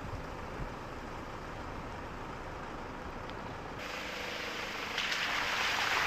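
A four-wheel-drive ute driving on a dirt track: a low, steady vehicle noise, then from about four seconds in the hiss of tyres grows as it comes through a shallow water crossing, with the splash and spray of water the loudest thing near the end.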